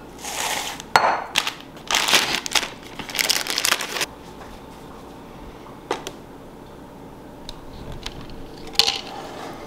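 Plastic zip-top bag of dry cookie mix crinkling and rustling as it is handled and pulled open, with a few knocks of a glass mixing bowl on the counter. Then mostly quiet, with a couple of single clinks later on.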